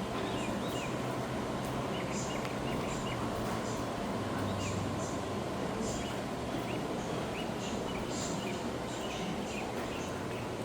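Small birds chirping in short, quick calls, scattered throughout, over a steady low hum and background noise.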